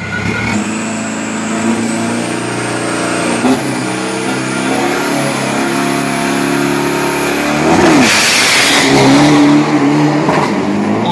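Drag-racing pickup truck's engine held at steady revs on the start line, with a thin high whine over it. About eight seconds in it launches with a sudden loud burst of noise, and the engine climbs in pitch as the truck accelerates away.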